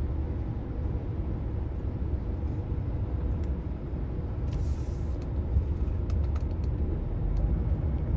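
Steady low rumble of a heavy truck's engine and tyres, heard inside the cab while driving, with a few faint clicks.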